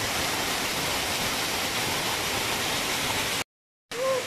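Steady rush of a waterfall splashing down a rock channel close by. It cuts off suddenly about three and a half seconds in, and after half a second of silence a quieter water sound returns with a short call from a person's voice.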